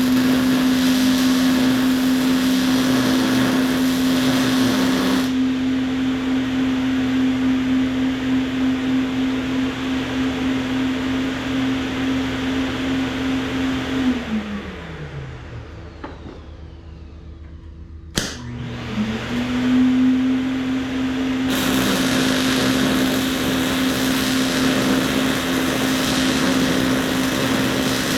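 Welding fume extractor's fan motor running with a steady hum, under the hiss of welding that stops about five seconds in. About 14 seconds in the fan winds down, falling in pitch; after a sharp click it spins back up, and the welding hiss returns about 21 seconds in.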